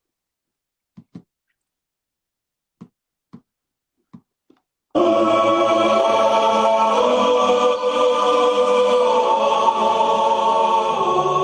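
A few faint clicks, then about five seconds in a choir-like stretch of music starts suddenly and loud: long held chords that change a couple of times.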